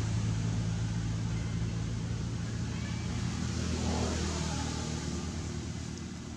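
A motor engine running steadily with a low hum, slowly fading away toward the end.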